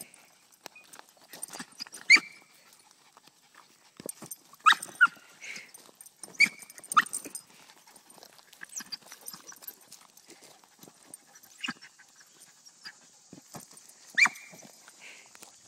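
Small dog giving several short, sharp barks, spaced irregularly, with the loudest a couple of seconds in and around the middle.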